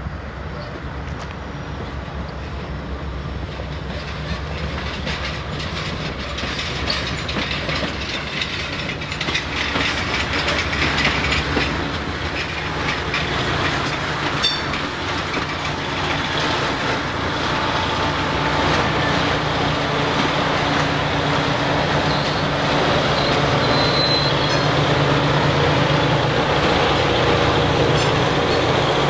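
Loram rail grinder train rolling past: a steady low diesel hum with the wheels clicking over the rail joints, growing steadily louder as the grinding power cars come alongside.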